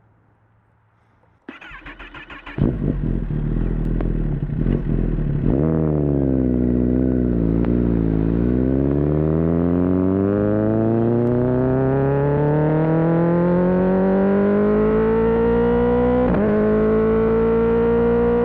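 Kawasaki ZX-10R inline-four engine being started: a brief pulsing crank about a second and a half in, then it catches and runs loudly with a few throttle blips. The engine note dips, then climbs steadily for about eight seconds before levelling off.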